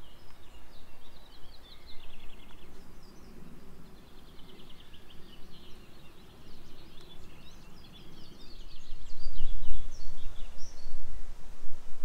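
Several songbirds singing, with rapid high trills and chirps. From about two-thirds of the way through, a low rumbling noise rises and becomes the loudest sound.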